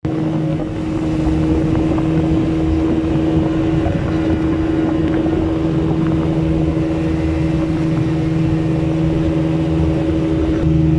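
Motorboat engine running at a steady speed, its note holding constant throughout.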